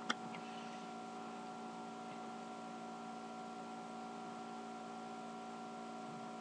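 Laptop cooling fan running steadily: a constant hum of several fixed tones over a light hiss. One short click comes just after the start.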